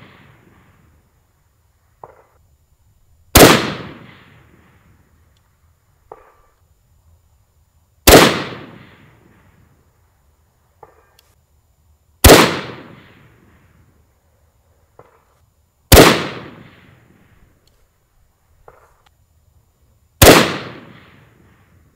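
Five unsuppressed rifle shots from a Desert Tech SRS A2 bullpup in 6.5 Creedmoor, about four seconds apart, each a sharp crack with an echo that dies away over a second or so. A few seconds after each shot, the faint short ring of the bullet striking the steel target comes back.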